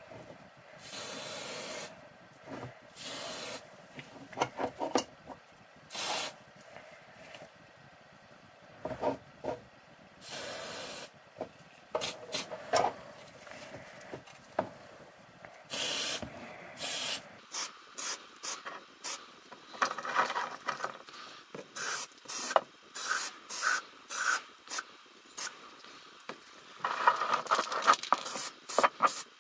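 Aerosol spray-paint can hissing in about five short bursts of up to a second each, with sharp clicks and knocks between them and a run of clattering near the end.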